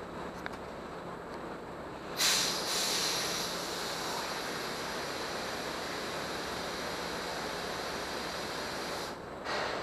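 Air hissing at the valve at the base of an inflatable tent's air-beam leg. It starts abruptly about two seconds in, runs steadily, stops about nine seconds in, and comes back in one short burst just after.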